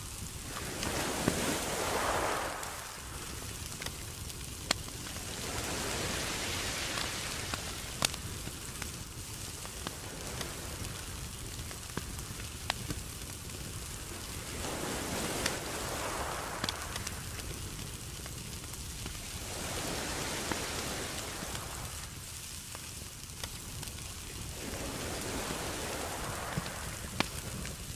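Lobster tails grilling on a wire rack over charcoal: a steady sizzle, with sharp crackles and pops from the coals. The sizzle swells and fades every few seconds.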